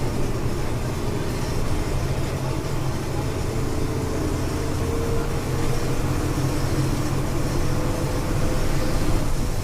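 Volkswagen Volksbus 17.230 EOD city bus's diesel engine running while the bus drives, a steady low drone with a faint whine in the middle and a slight rise in level near the end.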